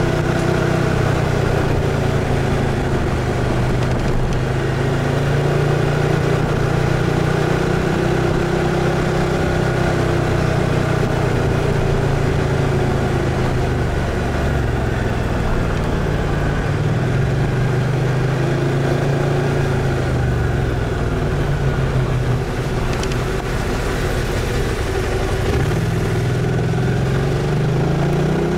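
BMW C 650 GT maxi-scooter's parallel-twin engine running under way, its note rising and falling with road speed and climbing again near the end as it accelerates.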